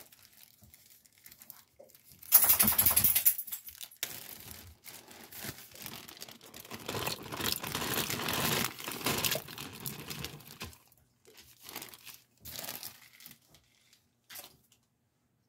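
Plastic bag crinkling and rustling as chopped ham is tipped out of it into the pot, with a loud burst of crinkling about two seconds in and a longer stretch of rustling through the middle, tapering to a few short rustles near the end.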